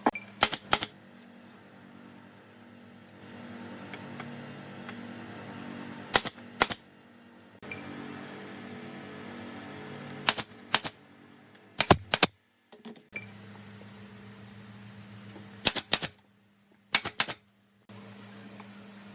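Sharp knocks in quick groups of two or three, a few seconds apart, over a steady low hum. The sound cuts out abruptly twice near the end.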